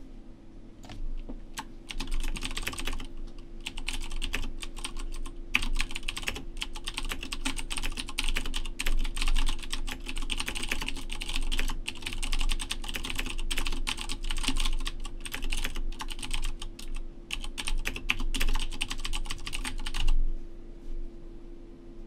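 Fast typing on a computer keyboard, quick runs of keystrokes with short pauses, starting about two seconds in and stopping about two seconds before the end. A steady low hum runs underneath.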